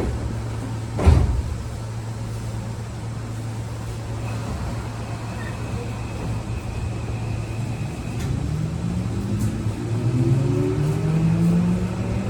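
Keio 8000-series train standing with a steady low hum, a single loud thump about a second in, then from about eight seconds in the Toshiba PMSM-VVVF traction inverter starting up as the train pulls away, several stacked motor tones rising steadily in pitch.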